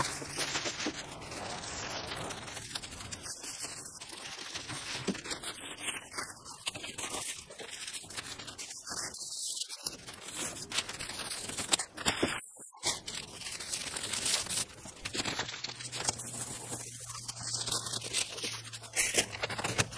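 Thin plastic masking sheet crinkling and rustling continuously as hands smooth it and press it onto masking tape.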